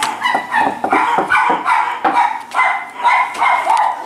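A dog barking repeatedly, about two or three barks a second.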